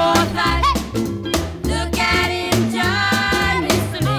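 Soundtrack song: a singer over a band with a steady drum beat.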